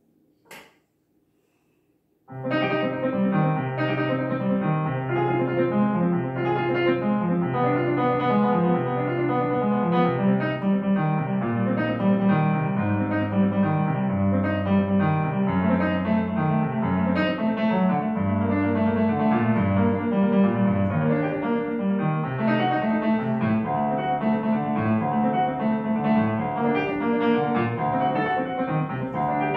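A single soft click about half a second in. Then, after a brief silence, solo digital piano music begins about two seconds in: a classical piece played continuously, with a moving bass line under the melody.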